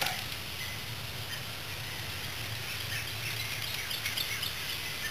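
Steady low background hum with faint bird chirps now and then; no distinct tool sounds.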